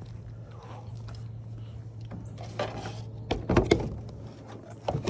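A series of knocks and clunks with some rustling, louder in the second half, over a steady low hum that stops about three and a half seconds in.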